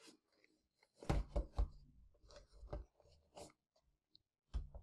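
Cardboard box and packaging handled by hand: a scattering of soft knocks, scrapes and rustles as items are lifted out, busiest about a second in.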